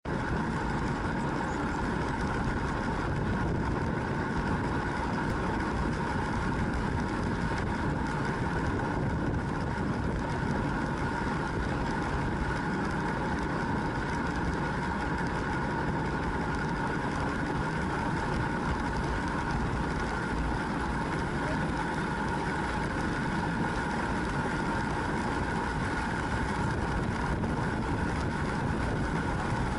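Steady rushing wind and road noise on a bicycle-mounted action camera riding at speed, with a faint constant hum and no change throughout.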